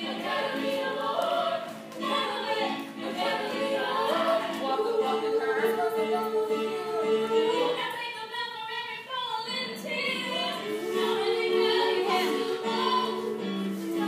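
Music of a choir of voices singing, with long held notes; the singing thins out briefly about eight seconds in.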